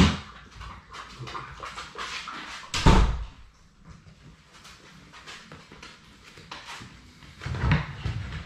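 Young Labrador retriever puppies whimpering and panting, with many small clicks and scuffles. A loud thump about three seconds in and another loud knock near the end.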